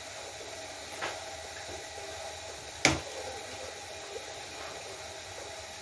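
Liquid boiling in a cooking pot, a steady hiss. A sharp knock about three seconds in, the loudest sound, and a lighter tap about a second in.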